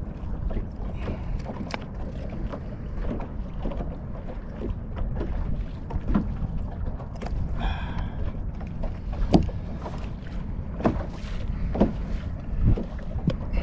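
Steady low wind rumble on the microphone in an open boat, with scattered light knocks and clicks as a redfish is handled and unhooked on the deck. A short higher-pitched tone comes a little past the middle.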